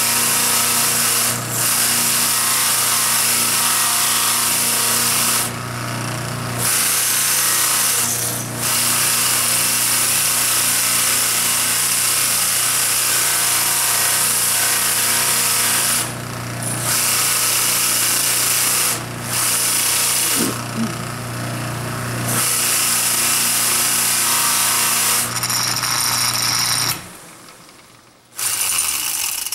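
Electric bench motor driving a flap sanding wheel, humming steadily, with the loud hiss of a carved wooden figure pressed against the spinning abrasive flaps. The hiss breaks off for short moments as the carving is lifted away, while the motor hum carries on. Near the end the motor is switched off and winds down, with one last brief touch of the wood against the coasting wheel.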